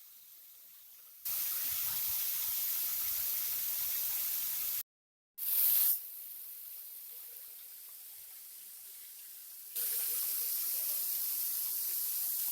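Waterfall rushing: a steady hiss of falling water. It comes in several clips of different loudness joined by hard cuts, with a brief dead-silent gap about five seconds in and a louder stretch from about ten seconds.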